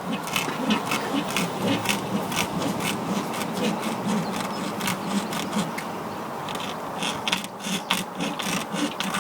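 A hacksaw blade sawing back and forth into a sliotar's tough cover and fibrous inside. It makes short rasping strokes, about three a second, eases off briefly around six seconds in, then speeds up near the end.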